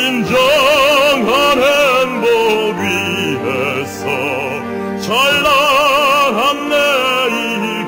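Musical theatre singing in Korean with orchestral accompaniment; the voices hold long notes with wide vibrato.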